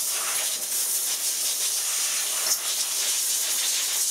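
A pressurised jet hissing steadily while the milling machine's one-shot lube oil pump is being cleaned out.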